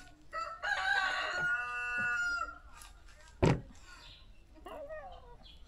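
A rooster crowing once, a long call of about two seconds, followed a second later by a single sharp knock.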